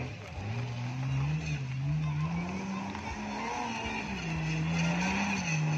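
Off-road 4x4's engine revving, its pitch climbing and dropping several times as the throttle is worked.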